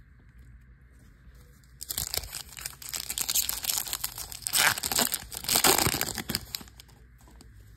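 Foil wrapper of a 2024 Bowman baseball card pack crinkling and tearing as it is ripped open by hand. It starts about two seconds in, runs for about five seconds as a dense crackle, and is loudest near the end.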